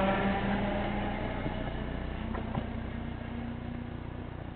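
Isle of Wight Island Line electric train of ex-London Underground 1938 tube stock pulling away. Its traction motors hum steadily over the rumble of the wheels on the rails, fading as the train draws off. Two sharp clicks come about two and a half seconds in.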